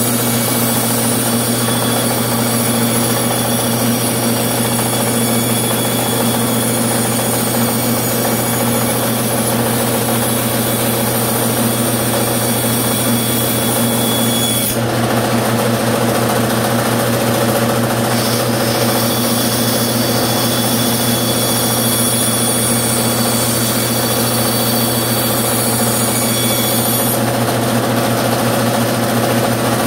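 Bandsaw running steadily with a constant motor hum while its blade cuts a curved line through scrap wood; the high blade sound shifts about halfway through as the piece is turned.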